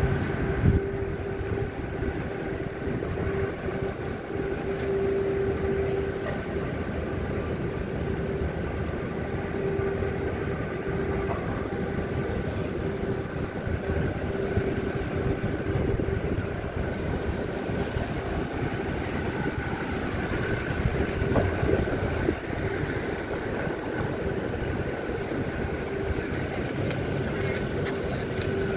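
Steady city street background noise: a low rumble with a constant droning hum at a fixed pitch.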